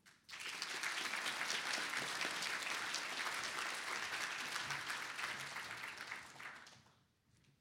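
Audience applauding, a dense patter of many hands clapping that starts just after the speaker's closing thanks and dies away near the end.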